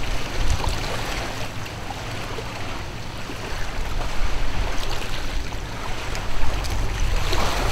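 Lake water lapping against a shoreline in small waves, over a fluctuating low rumble.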